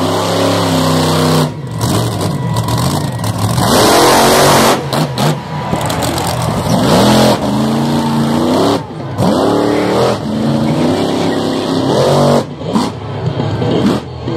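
Jester monster truck's engine revving hard through a freestyle run, its pitch climbing and falling over and over as the throttle is opened and lifted. The sound drops off suddenly for a moment several times.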